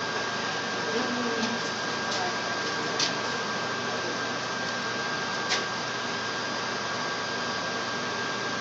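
Steady background hiss with a faint high whine running through it, broken by two light clicks, about three and five and a half seconds in.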